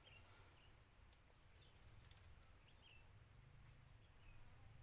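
Near silence outdoors, with faint, short bird chirps every second or so over a steady thin high whine and a low hum.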